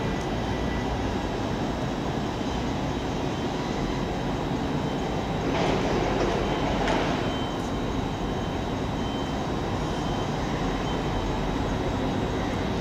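Hull Trains Class 180 diesel multiple unit approaching slowly over pointwork, its diesel engines running steadily under the rumble of the wheels. About six seconds in, the wheels clatter more loudly across the points, followed by a faint thin squeal.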